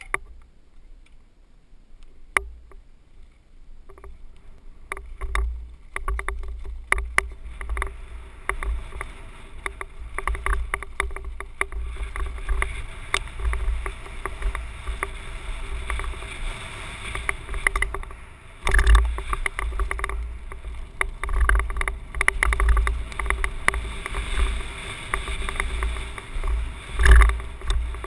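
Ride noise from a mountain bike descending a rocky dirt trail, picked up by a helmet-mounted camera: wind buffeting the microphone in a low rumble, with constant rattling and clicking of the bike over stones and bumps. Quieter for the first few seconds, then louder as speed builds, with heavy jolts about two-thirds through and near the end.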